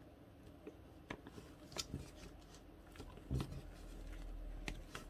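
Faint handling noise from a plastic action figure being posed by gloved hands: scattered small clicks and taps as its joints are moved and its feet are set down on the board, with a soft knock about three and a half seconds in.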